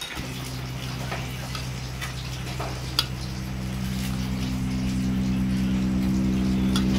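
A hand squishing and mixing fish pieces through thick mustard paste in a steel bowl, with a few light clicks against the metal. Under it a steady low hum starts suddenly and grows gradually louder.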